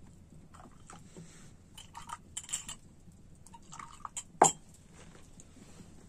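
Small glass tea glasses and teaspoons clinking as tea is poured from an enamel double teapot, a scatter of light clinks and taps. One sharp glass clink about four and a half seconds in is the loudest.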